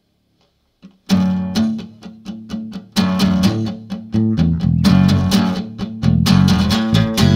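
Acoustic guitar strumming chords at the start of an acoustic punk song, coming in sharply about a second in after a brief hush and carrying on in a steady driving rhythm.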